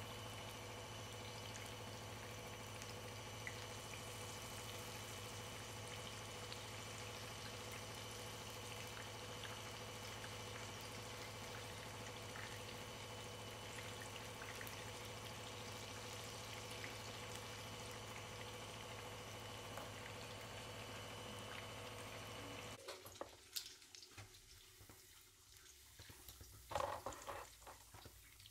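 Battered banana pieces sizzling steadily in hot oil in a frying pan, over a steady hum. About 23 seconds in the sizzling stops abruptly, and a few knocks follow as a fried piece is lifted into a metal strainer.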